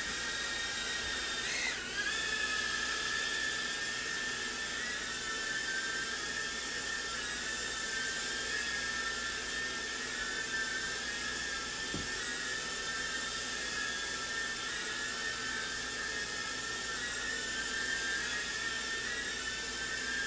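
JJRC H56 TaiChi mini quadcopter's motors and propellers whining steadily in flight, the pitch wavering slightly as it is steered. The pitch dips and rises briefly about two seconds in, and there is a single short knock near the twelve-second mark.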